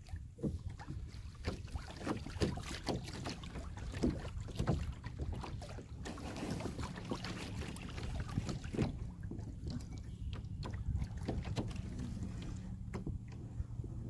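Kayak anchor rope being hauled up hand over hand, with repeated short scrapes, knocks and splashes as the wet line runs over the hull and cleat, under a steady rumble of wind on the microphone.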